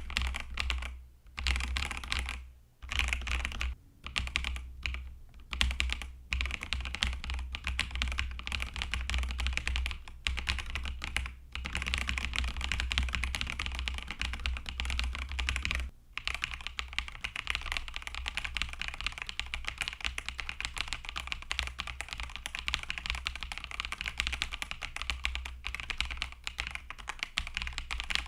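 Fast typing on a Kzzi K75 mechanical keyboard with TTC Flaming Purple linear switches: a dense run of keystrokes. It stops and starts a few times in the first several seconds, breaks off once briefly about halfway through, then runs on without a pause.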